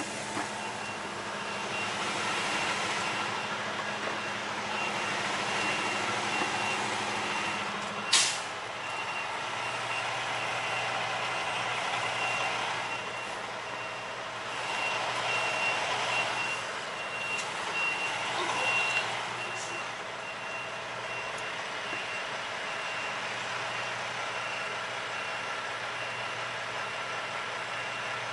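A vehicle backup alarm beeping steadily over an idling diesel truck engine. A short, sharp burst of noise about eight seconds in, where the engine note drops.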